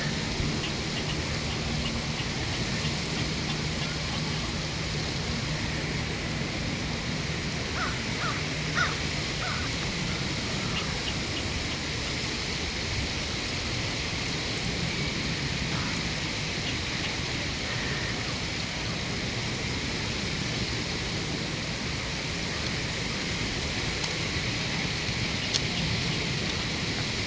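Steady outdoor background noise with a faint low hum over the first several seconds, and a short run of four bird calls about eight seconds in.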